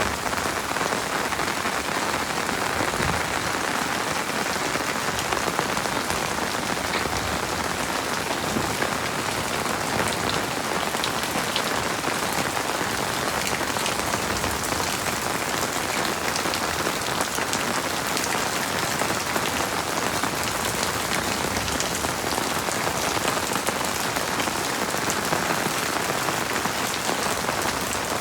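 Heavy rain falling steadily, a dense patter of drops with no thunder.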